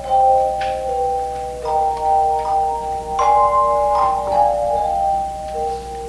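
Handbell choir playing a tune in chords, each bell struck and left to ring on, overlapping the next notes.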